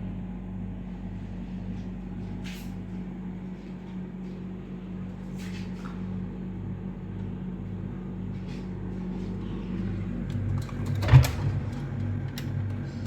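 Refrigerator just switched back on, running with a steady low hum, with a few light clicks and one loud thump about 11 seconds in, like the fridge door or a cupboard being shut.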